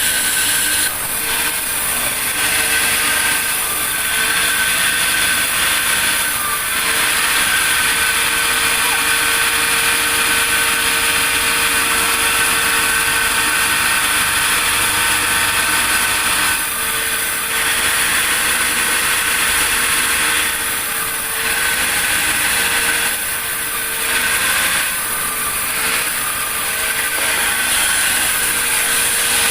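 Sawmill saw running with a steady whine, the level dipping briefly several times.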